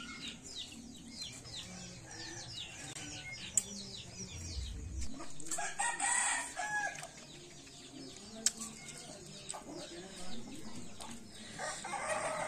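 Rooster crowing once near the middle, with another chicken call near the end, over quick, rapidly repeated chirps of small birds.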